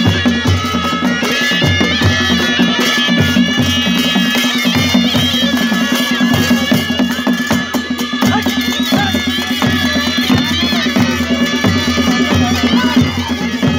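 Nepali traditional baja band playing without pause: shrill reed pipes of the shehnai type carry a melody over a steady drone, with rhythmic beats of a stick-struck dholaki barrel drum and cymbal clashes.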